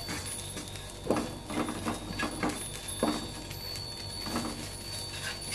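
Wooden spatula stirring and scraping chopped onions, garlic and chilli around a nonstick wok, in a run of irregular strokes.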